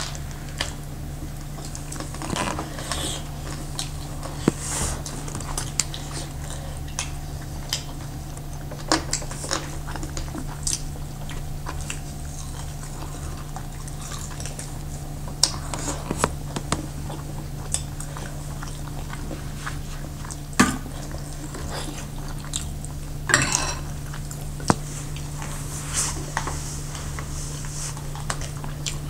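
People eating a meal of momo and barbecued meat: chewing, with scattered sharp clinks of tableware. A steady low hum runs underneath.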